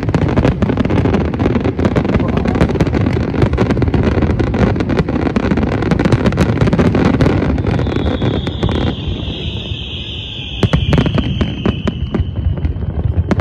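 Fireworks display: a dense barrage of bangs and crackling from bursting aerial shells. About eight seconds in, a long high whistle slowly falls in pitch over several seconds while the bangs briefly thin out, then the bangs pick up again near the end.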